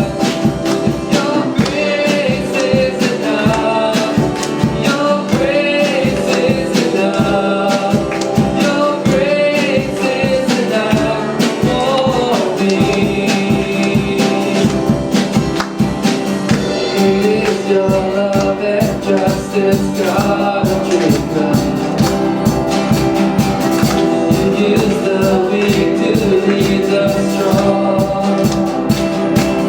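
Church worship band playing a song, with voices singing the melody over instruments and a steady drum beat.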